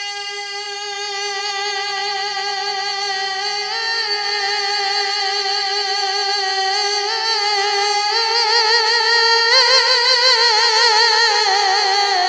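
A man's voice singing a naat without words: he holds one long steady note, then climbs in steps into wavering, ornamented runs, growing louder toward the end.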